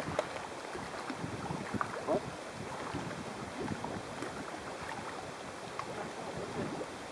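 Wind over a mountain lake with small choppy waves lapping and splashing, an irregular patter of little splashes over a steady rush of wind on the microphone.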